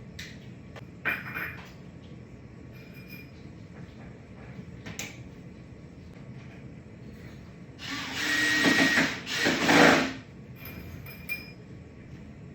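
Power drill driving screws, two short runs of about a second each near the end, with a steady whine under them; this is likely the top boards being fastened to the table frame. A few light knocks come before.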